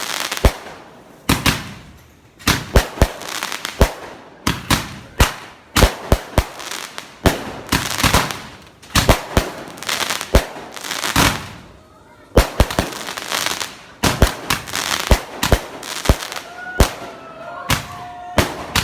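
Fireworks and firecrackers going off in a rapid, irregular series of sharp bangs, with crackling between the blasts.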